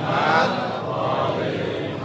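Men's voices chanting a religious phrase together, a congregational recitation rather than the sermon's speech.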